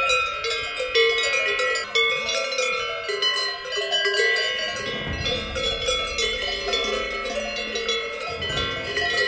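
Many livestock bells clanking and ringing together at different pitches, restruck irregularly, as from a grazing herd of cows wearing cowbells.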